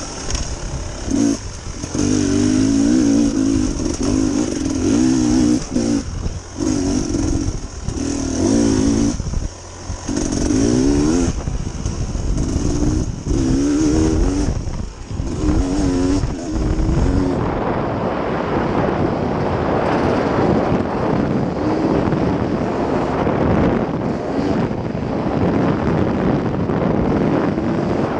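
Dirt bike engine revving up and down again and again as the rider goes on and off the throttle along the trail. After about seventeen seconds the engine fades under a steady rushing noise.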